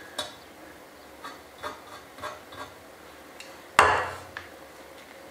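A few light taps and rubs of hands handling a metal part in a vise, then, nearly four seconds in, one sharp clack as an aerosol spray can is set down on the workbench.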